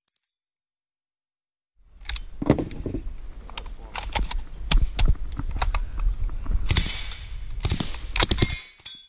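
Suppressed submachine gun being handled between strings of fire: rustling and bumping on the head-worn camera's microphone with a quick series of sharp metallic clicks and clacks. It starts about two seconds in, has louder clusters of clacks about five and six seconds in, and stops just before the end.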